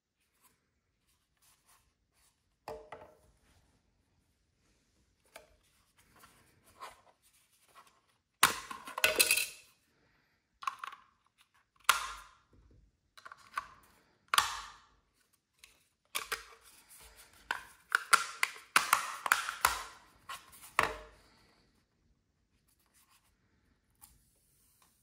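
Handling sounds from a small plastic CO2 monitor while AA batteries are fitted into its battery compartment: a string of sharp plastic clicks, with batteries rattling and scraping into place. The clicks and scrapes come in several bursts, the loudest about a third of the way in and again over the last third.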